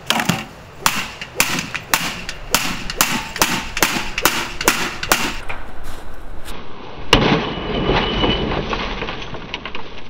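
A quick run of sharp cracks and snaps from an old microwave, two or three a second for about five seconds. One louder crack follows about seven seconds in, then a steady rush of wind.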